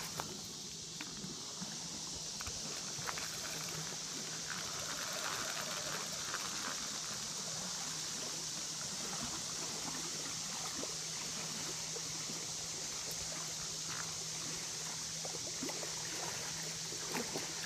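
Steady outdoor background hiss, with a faint steady low hum underneath and a few faint clicks.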